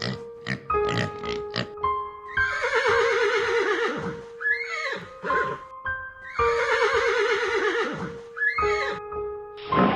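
Horse whinnying twice, each a long call falling and quavering in pitch, over background music with sustained keyboard notes.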